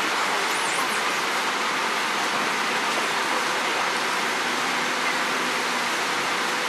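Scania bus engine bay idling: a steady rushing hiss with a faint steady hum under it.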